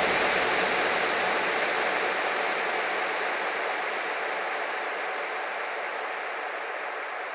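White-noise sweep of the kind used in hardcore dance tracks, fading out slowly while its top is filtered gradually downward: the closing effect of the track.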